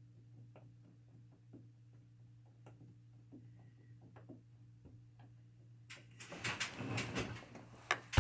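Faint, irregular light clicks of a ratchet working the 10 mm bolt on the PCM harness connector loose. About six seconds in, louder rustling and scraping begins, ending in a few loud knocks.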